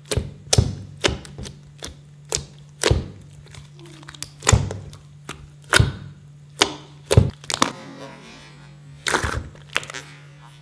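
Jiggly watery slime squeezed and kneaded by hand in a stainless steel bowl: irregular squelches and sharp pops, about two a second, over a steady low hum.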